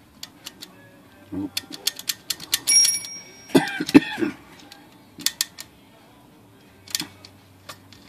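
Typewriter carriage being pushed along by hand on a machine whose carriage binds: a run of sharp metallic clicks, the bell dinging once briefly about three seconds in, then a short scraping rattle, with a few more clicks later.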